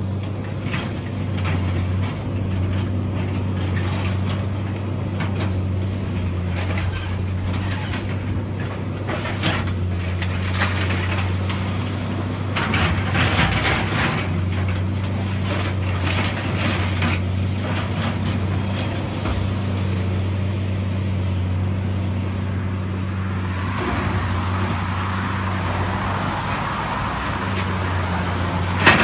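Caterpillar excavator working a demolition rubble pile: its diesel engine runs with a steady low hum while metal and debris clank and crash repeatedly, most densely in the first half. A rushing noise swells in the last few seconds.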